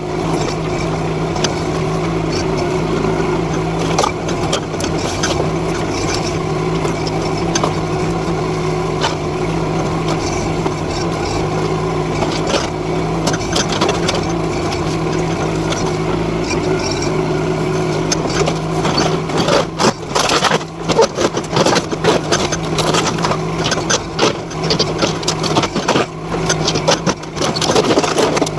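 NT18K mini excavator's engine running steadily. About two-thirds of the way through, a run of crashing and clattering begins as the machine pulls apart debris of sheet metal and timber.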